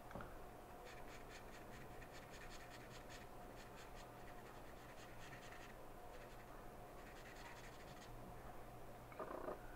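Marker tip rubbing on paper in faint, quick, short colouring strokes. The strokes come in three runs with brief pauses between them.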